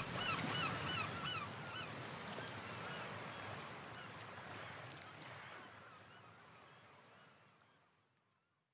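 An edited soundtrack fading out: a noisy wash with a quick run of short, repeated bird calls in the first second and a half, fading steadily to silence near the end.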